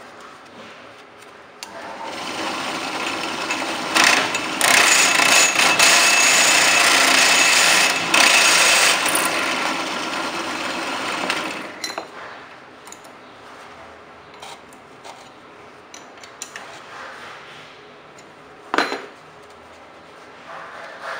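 A power tool runs for about ten seconds, starting about two seconds in and stopping. Afterwards come a few light clicks and one sharp knock.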